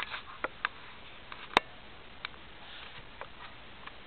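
A few scattered light clicks and taps over faint steady hiss, with one sharper click about a second and a half in.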